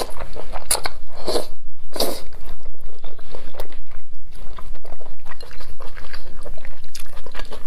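Close-miked mouth sounds of eating wide mianpi noodles in sesame sauce: a few loud wet slurps in the first two seconds, then quick wet chewing and lip smacking.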